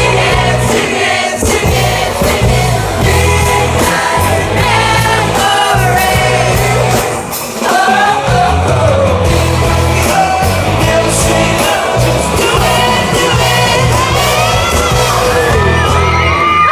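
Loud amplified pop-rock played through outdoor concert speakers: male group vocals singing over a pulsing bass line and drums, heard from within the crowd.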